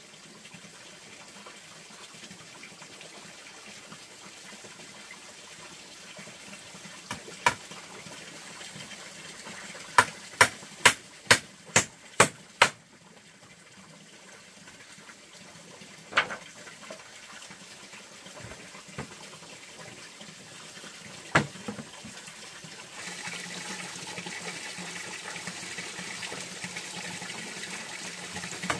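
Running water, with sharp knocks now and then, including a run of about seven evenly spaced knocks, about two a second, some ten seconds in. The water grows louder near the end.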